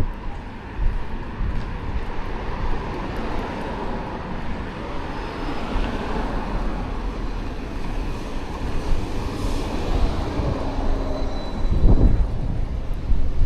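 An aircraft passing overhead: a broad, steady rumble that swells through the middle and slowly fades. Near the end, gusts of wind buffet the microphone.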